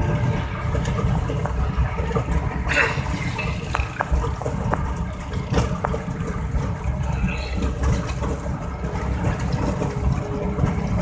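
Steady low rumble of a moving vehicle heard from inside the cabin, engine and road noise, with a few light clicks about three and five seconds in.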